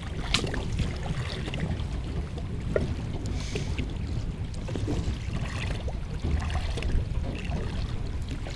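Wind rumbling on the microphone and water lapping around a small boat, with a few light knocks and clicks.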